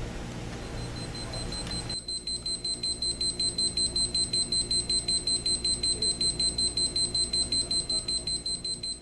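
Timex T105W alarm clock's alarm sounding: a rapid, evenly pulsed high-pitched beep, about four to five beeps a second, that starts faintly, grows louder over about two seconds and then holds steady.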